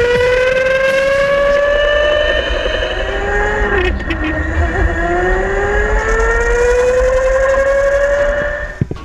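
Go-kart motor heard from on board, its whine climbing steadily in pitch as the kart accelerates. About four seconds in it drops briefly as the kart slows for a corner, then climbs again on the next straight, and it stops near the end.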